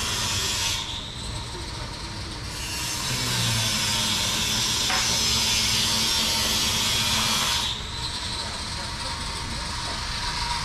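Street ambience: a steady rushing noise that thins out for a second or two about a second in, swells through the middle, and drops back near the end, with a faint steady high tone underneath.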